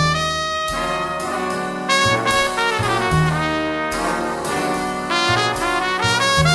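Jazz music led by brass, with trumpets and trombones playing held and shifting notes over a moving bass line.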